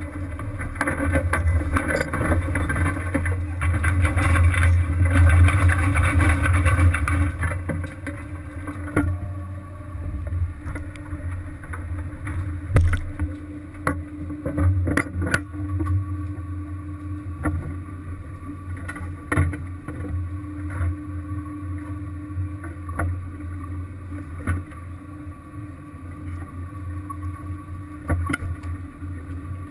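Crab fishing vessel's engine running with a steady low drone, with a hiss over it for the first seven seconds or so. Scattered sharp knocks sound on board, about one every few seconds after that.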